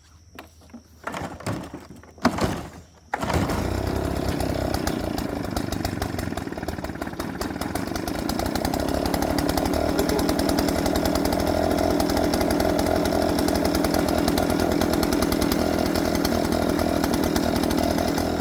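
VEVOR 79cc two-stroke backpack leaf blower engine pull-started cold on choke: two quick yanks of the recoil starter, then it catches about three seconds in and runs steadily. This is its first start, on fresh fuel just primed through the lines, and it starts easily.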